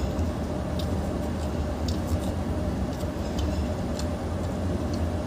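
A steady low rumble of background noise, with faint scattered clicks and smacks of hand-eating: fingers mixing rice on a steel plate, and chewing.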